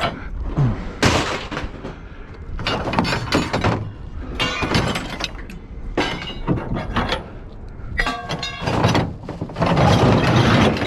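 Pieces of scrap metal, bent electrical conduit among them, being tossed and dropped onto a pile: a run of clanks and clatters, several ringing briefly, with a longer, louder clattering rush near the end.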